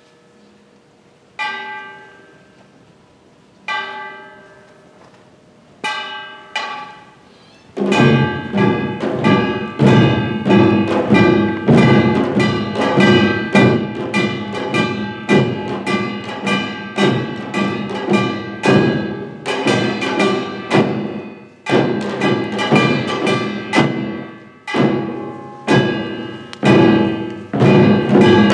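Korean traditional percussion ensemble of janggu hourglass drums and buk barrel drums. Single ringing strokes sound about every two seconds, then about eight seconds in the whole group comes in with loud, fast, dense drumming.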